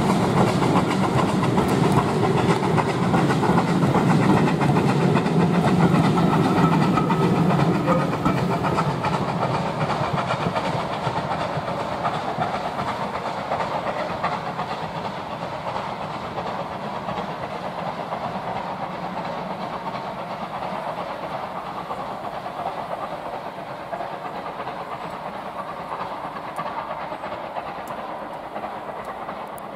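Rear coaches of a steam-hauled passenger train rolling past on the rails, wheels clattering over the track. It is loud for the first several seconds, then fades steadily as the train draws away.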